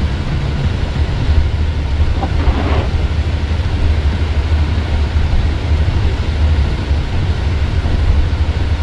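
Wind buffeting the microphone in a snowstorm: a loud, steady, rumbling roar with gusty fluctuations.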